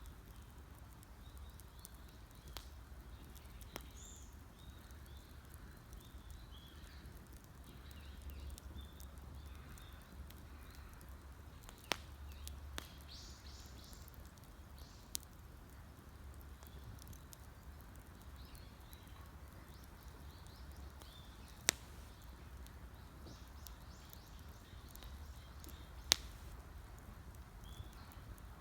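Wood campfire crackling, with a few sharp loud pops spread out over a low steady rumble, while small birds chirp faintly.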